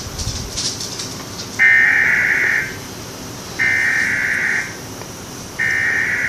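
Emergency Alert System header tones: three bursts of high-pitched, buzzing digital data screech, each about a second long with about a second's gap between them, the first starting about one and a half seconds in.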